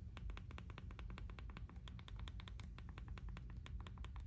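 iPhone 15 Pro volume buttons pressed over and over through a slim case's metal button covers: a faint, quick run of clicks, several a second. The buttons are tactile and not stiff.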